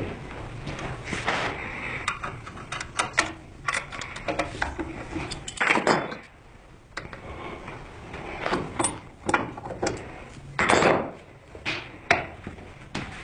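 Workbench handling sounds: irregular knocks, clicks and short scraping strokes of hand tools and workpiece, with two longer scrapes about six and eleven seconds in.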